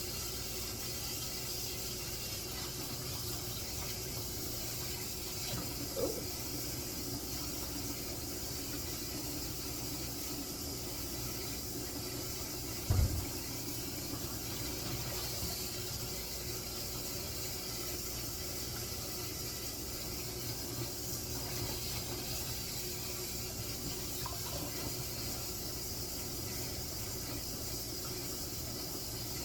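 Kitchen tap water running steadily into a sink, with one short low thump a little under halfway through.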